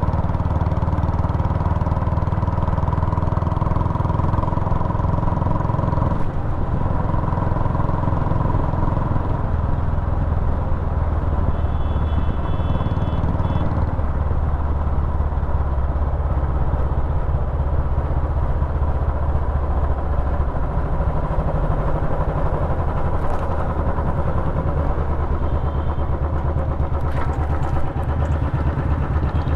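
Royal Enfield Classic single-cylinder engine running through a short bottle silencer, a steady, loud, fast low thump of exhaust pulses.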